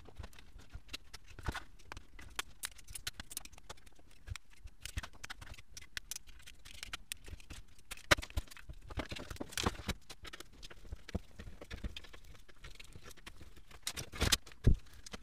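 Gloved hands handling a sheet-metal chassis panel with its fan assembly and wiring: irregular small clicks, taps and rustles of metal and wires, with a few sharper clicks near the end as a screwdriver works a screw.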